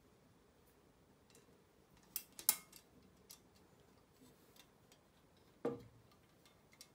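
Small scattered clicks and taps of thin aluminium model-airplane parts and small metal screws being handled and fitted together, with a louder sharp metal clack about two seconds in and a knock near the end.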